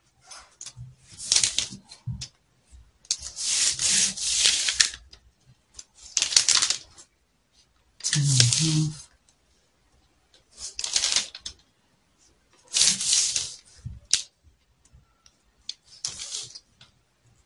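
Marker pen scratching and rubbing on paper in a series of strokes: about seven hissy bursts, each half a second to two seconds long, with short pauses between.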